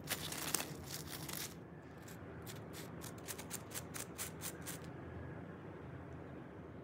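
Crisp fried potato chips crunching: a dense burst of crunches, then steady crunchy chewing at about three crunches a second that stops about five seconds in.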